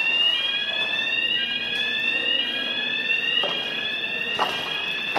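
Building fire alarm sounding: a high electronic tone that rises slowly and starts over again and again, alerting the occupants to the fire in the building. Two faint knocks come about three and a half and four and a half seconds in.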